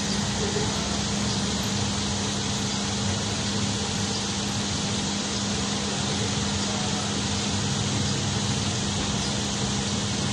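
Steady background noise with a constant low hum and no distinct events.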